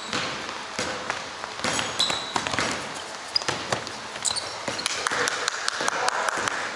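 Pickup basketball on a hardwood gym floor: a scatter of sharp knocks from footfalls and the ball bouncing, with brief high squeaks of sneakers on the wood.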